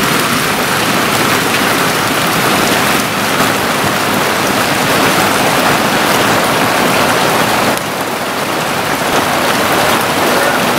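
Monsoon rain falling steadily, a dense even hiss of rain on surfaces, its level dipping slightly about three seconds in and again near eight seconds.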